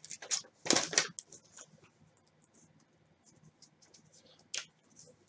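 Brief scratching and rustling of a taped mail package being handled and opened by hand, in several short bursts, then a single sharp click about four and a half seconds in.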